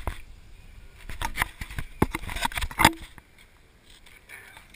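Handheld camera being handled: a run of irregular knocks and rubbing against its body and microphone, the loudest knock near three seconds in, then quieter.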